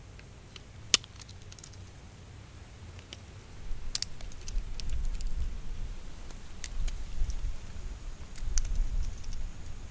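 Hazelnut shells cracking and being handled: scattered sharp clicks and snaps, the loudest about a second in and another about four seconds in. A low rumble builds from about three and a half seconds in.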